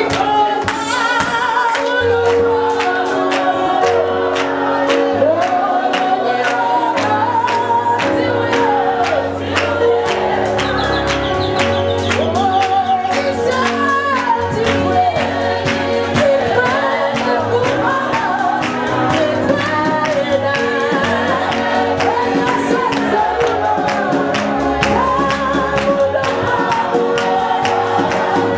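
Live gospel music sung in Shona: a woman leads into a microphone with a choir joining her, over a band with drums keeping a steady beat and a low bass line.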